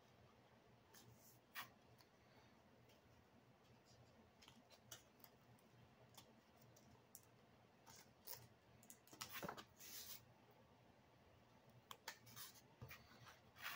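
Near silence with faint, scattered clicks and scrapes of foam-board parts being handled and pressed together, and a longer scrape about nine seconds in.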